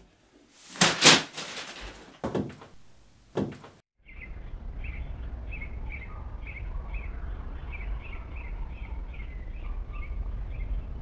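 A few sharp thuds in the first few seconds, the loudest about a second in. Then birds chirping in quick repeated short notes, about three a second, over a steady low rumble.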